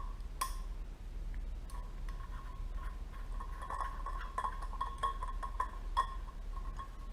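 Small metal carburettor parts (jets and a screwdriver) clinking and tapping as they are handled, with a faint steady tone underneath from about two seconds in.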